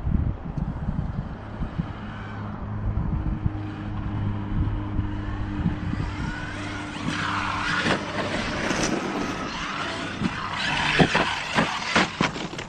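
Losi Super Baja Rey large-scale RC truck driving on snow: its electric motor whines, rising as it accelerates, over the crunch and skid of its tyres in the snow. A few sharp knocks come near the end.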